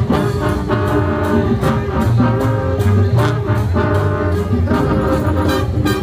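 Brass band music: trumpets and trombones playing held chords over a steady beat.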